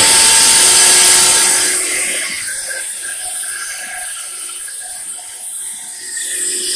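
Large fan-cooled electric motor on a CNC nesting machine, switched on and running: a loud rush of air with a steady whine. It starts suddenly, is loudest for about the first second and a half, then settles a little quieter and steady. The motor is being run briefly to check that it turns.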